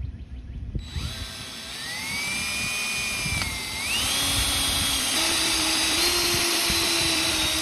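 Cordless drill motor whining as its bit drills out a broken exhaust manifold stud in a Ford 8N tractor's cylinder head. The whine starts about a second in and rises in pitch twice as the drill speeds up, then holds steady.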